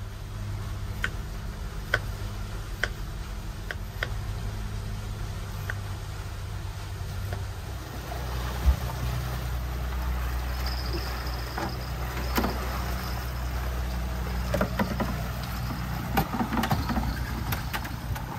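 Twin Suzuki 250 outboard motors running at low trolling speed, a steady low hum that gets louder about eight seconds in. Over it, in the first few seconds, a knife chops on a plastic cutting board about once a second; later come scattered knocks.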